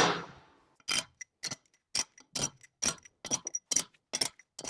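A series of short, sharp metallic clicks and taps, roughly two a second and unevenly spaced, each with a brief ring, from hand tools and metal parts during engine overhaul work.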